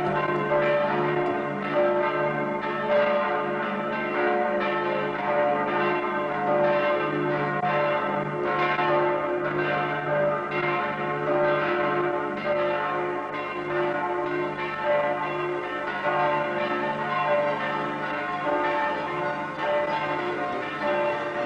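Several church bells pealing together, a continuous mass of overlapping strikes with long ringing tones.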